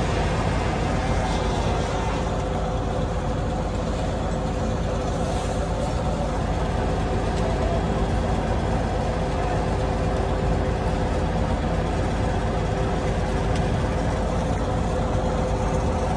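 Heavy truck engine idling steadily: a low rumble with a few constant tones.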